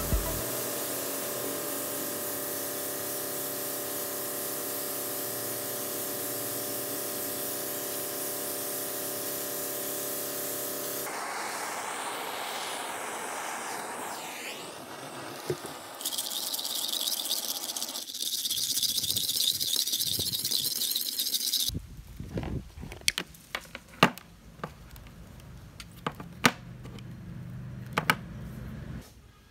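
Compressed-air spray gun spraying paint, a steady hiss over a steady motor hum. After a cut, a handheld butane torch hisses as it heats screws in a metal pan. About 22 seconds in, the hiss stops, giving way to light clicks and taps of a plastic power adapter being handled on a wooden bench.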